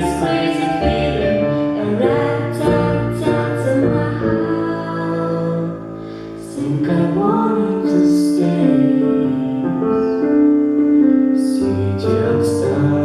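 A woman singing a slow ballad over piano accompaniment, with long held notes.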